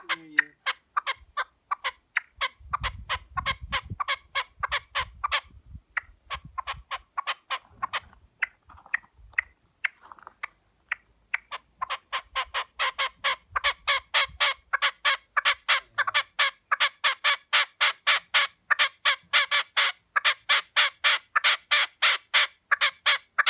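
Red-legged partridge calling: a long run of short, rapid notes, broken by a couple of brief pauses in the first half. Later it settles into a steady, louder series of about four notes a second.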